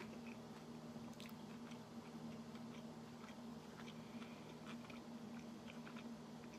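A person chewing a mouthful of a soft steak-and-cheese sandwich with the mouth closed: faint, irregular wet clicks and smacks over a steady low hum.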